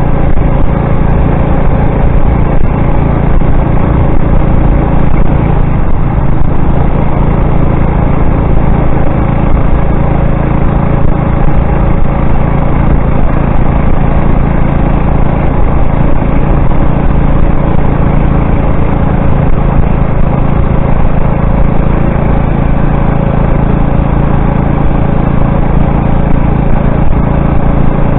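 Motorized bicycle's small gas engine running at a steady, even speed while the bike is ridden.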